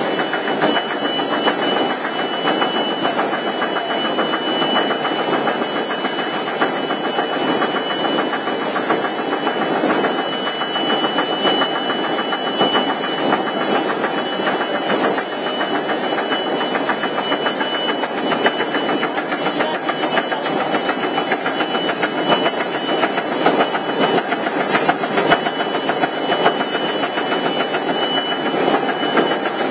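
Food pad making machine running at production speed: a steady, dense mechanical clatter of rollers and feed units, with a thin high steady whine over it.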